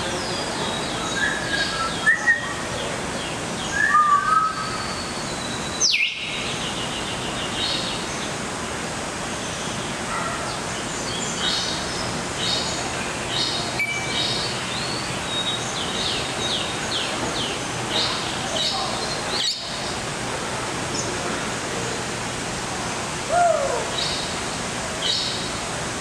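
Many aviary birds chirping and twittering: short high chirps overlapping all through, with a few sliding whistles, over a steady rushing background noise.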